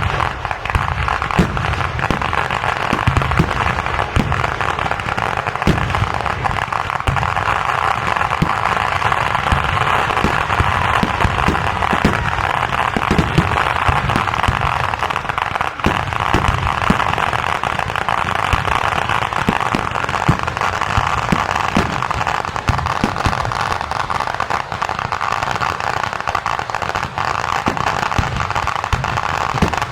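Fireworks barrage: a dense, unbroken run of firecrackers and shells going off, fast crackling layered with many overlapping deep booms.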